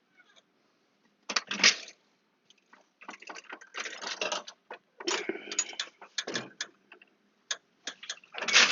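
Irregular clattering and rattling of hard objects being handled, in several bursts of a second or so with sharp clicks between them.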